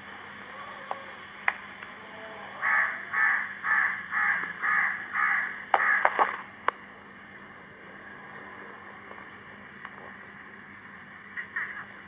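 A bird calling six times in a quick, even series, about two calls a second, followed by a few sharp clicks.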